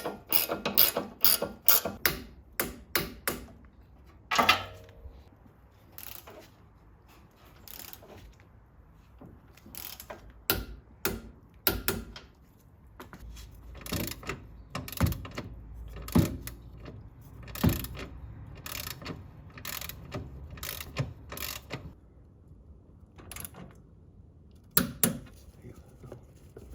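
Hand socket ratchet clicking: quick strokes at about four clicks a second for the first few seconds, then scattered single clicks and a few deeper knocks.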